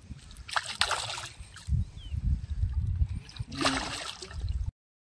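Water splashing and trickling, with two short, louder splashy bursts and a low rumble underneath; the sound cuts off suddenly near the end.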